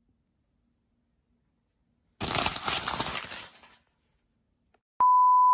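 A sheet of paper is taken away with a rough rustle lasting about a second and a half, roughly two seconds in. Near the end a loud steady electronic beep, one pure tone, starts abruptly.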